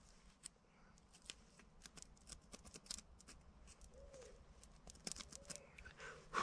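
Faint, irregular scraping and clicking as a pointed tool is twisted into a King Alfred's cake fungus (Daldinia concentrica), drilling a small hole in its crumbly, still-damp body.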